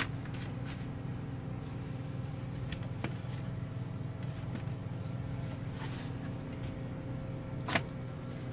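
A steady low mechanical hum, like a running engine or motor, with a few faint light clicks and one sharper click about three-quarters of the way through.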